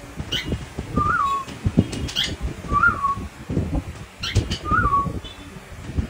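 Cockatiel giving quick high chirps, with a short rising-then-falling whistle repeated three times about two seconds apart, over soft rustling and knocks.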